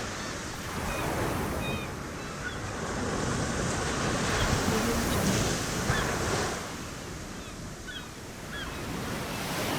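Surf washing onto a beach, an even rush of waves that swells and eases, with a few faint, short seagull calls here and there.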